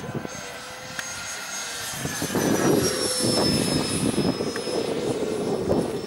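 High-pitched whine of the electric ducted fan in a radio-controlled MiG jet model as it flies overhead, falling slowly in pitch. Wind buffets the microphone, growing louder about two seconds in.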